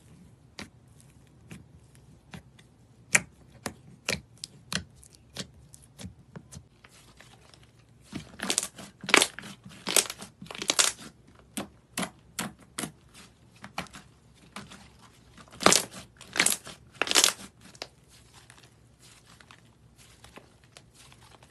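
Slime being poked, pressed and stretched by hand, giving sharp popping and clicking sounds as trapped air bursts. The pops come singly at first, then in dense, louder runs of crackling about eight seconds in and again around sixteen seconds.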